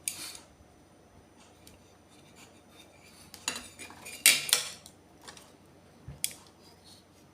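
Metal and plastic parts of a pop-up floor outlet box being handled, with its aluminium top cover clinking and scraping against the housing. There are a handful of short clinks, the loudest a little after four seconds in.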